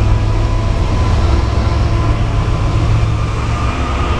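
A string of BNSF diesel-electric freight locomotives running light (a power move) passes close by at speed: a loud, steady rumble of diesel engines and rolling wheels.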